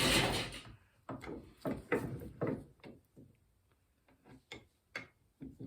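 Bench vise and steel kickstand parts clunking and clicking as the kickstand assembly is set and clamped in the jaws. It is a string of about eight short, uneven metal knocks, bunched in the first three seconds and more scattered near the end.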